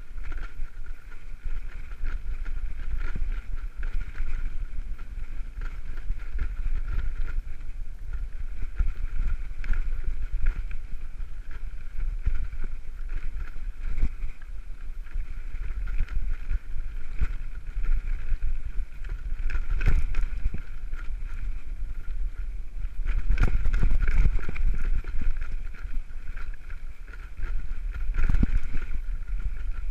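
A steel-frame touring bicycle rolling fast down a rough gravel trail: wind rumbling on the microphone, with tyres crunching over stones and the bike rattling and knocking over bumps. The knocks are hardest about two-thirds of the way through and again near the end.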